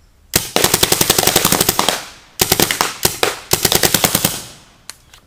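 Tacamo Blizzard magfed paintball marker firing on full auto: four bursts of rapid shots, the first the longest, then one last single shot near the end.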